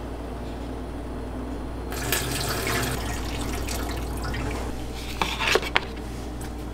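Cooking water being poured off a paper bowl of instant noodles into a stainless steel sink drain: a splashing stream starts about two seconds in and runs for a few seconds, draining the noodles before sauce goes on. A few light knocks follow near the end, over a steady low hum.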